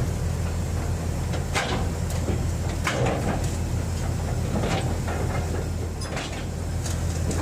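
A heavy machine's engine running steadily with a deep hum, with a few irregular knocks and clanks of metal.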